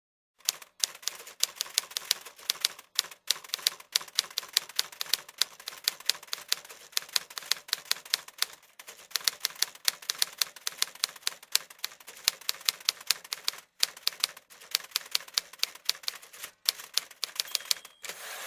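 Typewriter keys clicking in quick succession, several strokes a second with a few brief pauses.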